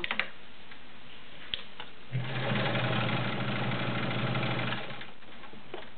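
Kenmore model 1750 sewing machine, with its 1.2 amp motor, stitching through six layers of denim. It gives a few clicks at first, then runs steadily for nearly three seconds from about two seconds in, and stops.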